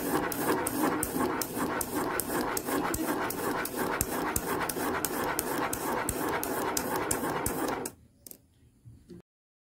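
Plastic Spirograph gear spun quickly round inside its toothed ring by a pen, its teeth rattling against the ring's teeth while the pen scratches over the paper, in a fast even rhythm of several clicks a second. It stops abruptly about eight seconds in.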